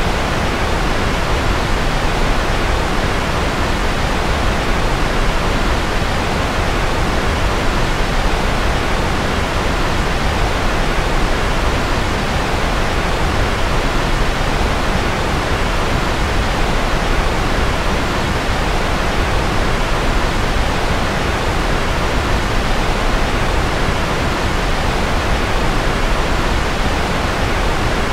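Steady white-noise sleep sound: an even, unbroken hiss with more weight in the low and middle range than in the highs.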